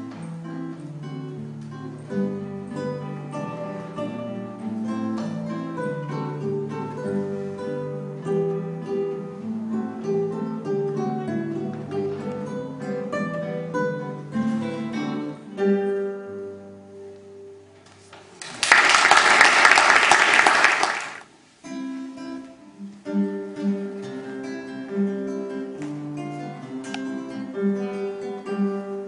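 Two nylon-string classical guitars play a duet, which ends about two-thirds of the way through on a held low note. Applause follows for about three seconds and is the loudest sound. Then a single classical guitar starts a new piece.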